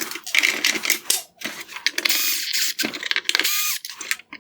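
Cordless electric screwdriver with a T20 Torx bit backing screws out of a plastic headlight housing. The motor whines up and down in several short bursts, with the clicking and rattle of the bit and screws.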